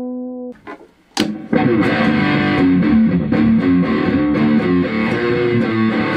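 A 335-style semi-hollow electric guitar played through an amp: a held note rings out and fades, and after a brief gap a sharp strum about a second in starts a stretch of busy, continuous playing.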